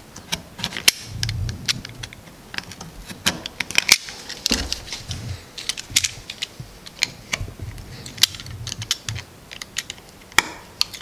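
Snap-off utility knife blade cutting and scraping into a painted wooden door jamb, a quick, irregular run of sharp clicks and scrapes. The knife is squaring off the rounded corners of a strike-plate recess.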